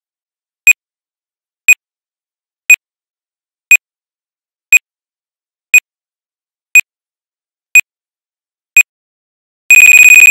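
Electronic countdown-timer beeps, one short high beep each second for the last seconds of the count, then a single long steady beep of the same pitch near the end as the timer reaches zero.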